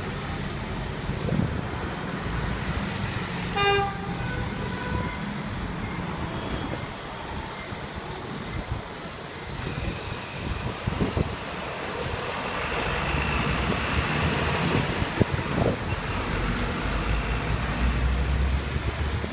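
Street traffic noise at a busy intersection, with a short horn beep about four seconds in. A city bus's engine grows louder toward the end as the bus turns close by.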